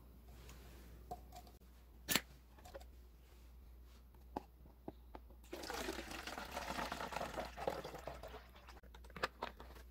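Liquid rigidizer poured from a plastic jug through a plastic funnel into a plastic spray bottle: a few clicks and knocks of handling, then the pour splashing and gurgling for about three seconds from about five seconds in.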